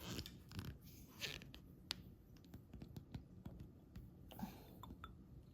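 Faint rustling and scattered light clicks of packaging being handled while a fragrance product is unboxed.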